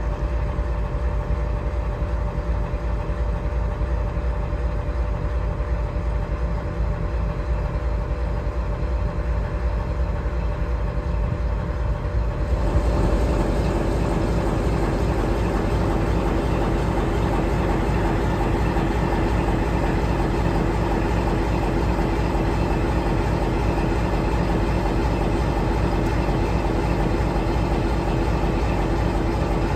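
CSX CM44AC diesel-electric locomotive, a Wabtec rebuild with a 16-cylinder GE FDL diesel, running steadily at idle while stopped. It is a deep drone with a steady hum over it that gets louder and fuller about twelve seconds in.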